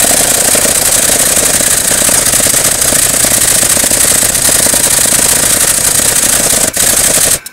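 Air-powered tool running hard with a fast, steady rattle, driving the screw of a broaching press that pushes a high-speed steel keyway broach through a cast iron pulley on its first pass. The rattle dips briefly, then stops near the end.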